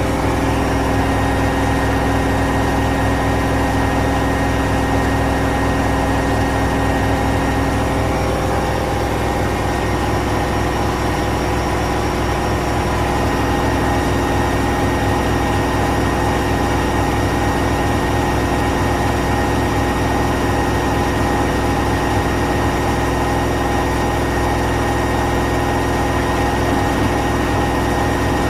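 Washing machine running: a steady motor hum with a low drone and several steady tones. Some of the tones shift slightly about eight and thirteen seconds in.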